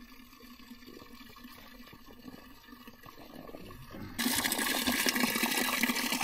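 Water from a natural spring running steadily, a loud even rush that starts suddenly about four seconds in, after a few quiet seconds.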